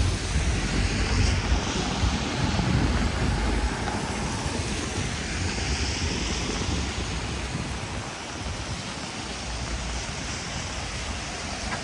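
Rainy street ambience: hiss from car tyres on wet pavement, swelling and fading as vehicles pass about every five seconds. Wind rumbles on the microphone underneath, heavier in the first half.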